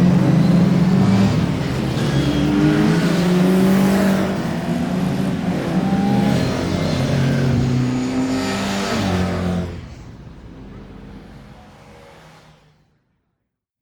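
Several racing car engines at once, revving up and down through gear changes. The sound drops sharply about ten seconds in and fades to silence just before the end.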